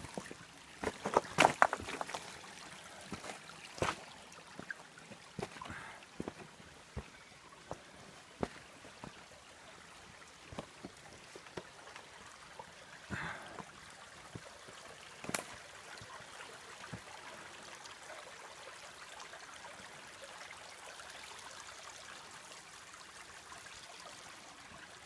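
Footsteps on leaf litter and loose rocks, with sharp clicks and knocks mostly in the first half, over a shallow creek trickling over stones that carries on steadily through the second half.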